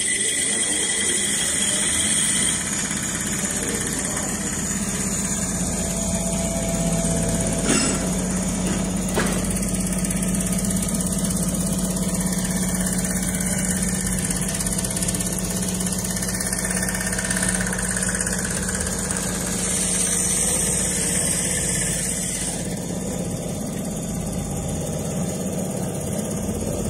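Richpeace automatic furniture sewing machine running steadily, stitching a quilted panel non-stop, with a couple of brief clicks about a third of the way through.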